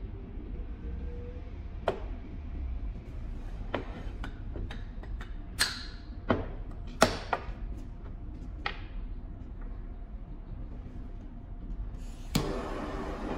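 Scattered knocks and clicks as a graphite welding mould and its clamp are handled, opened and set down on a hard bench. Near the end comes a sharp click, then the steady hiss of a handheld gas torch burning.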